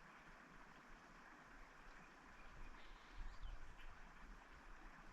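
Near silence: a faint, steady rush of creek water, with low rumbling on the microphone starting about three seconds in.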